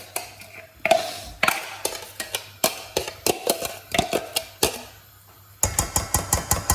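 Knife knocking on a chopping board while chopping onions: scattered knocks, then a quick run of even chops, about eight a second, near the end.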